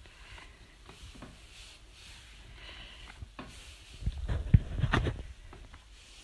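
Hands rubbing moisturising cream into bare feet: soft, repeated swishing strokes of skin on skin. A few dull bumps cluster about four to five seconds in and are the loudest thing heard.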